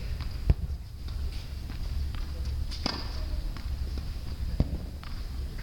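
A few sharp knocks of tennis balls bouncing and being hit on an indoor hard court, the loudest about half a second in, with others near the middle and toward the end, echoing in the hall over a steady low hum.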